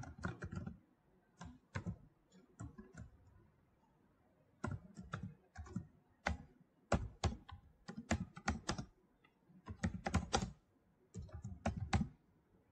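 Computer keyboard typing in short, irregular bursts of keystrokes, with a pause of about a second and a half a few seconds in.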